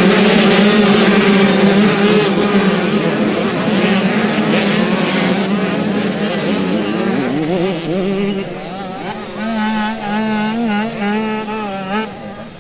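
A pack of youth motocross bikes with small two-stroke engines running hard together in a loud, dense blare. After about eight seconds it thins to a few bikes revving up and down unevenly.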